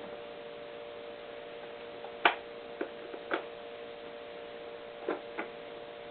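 A steady electrical hum with several short, sharp clicks and knocks, the loudest a little over two seconds in, and a pair near the end.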